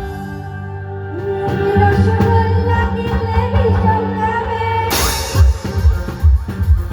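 Music with singing: the drum beat drops out, leaving a held bass note under a sung melody, then a cymbal crash about five seconds in brings the drums back.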